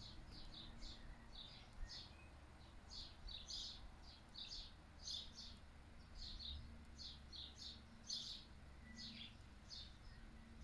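Small birds chirping faintly: short, high chirps, two or three a second at irregular spacing, over a low steady rumble of wind.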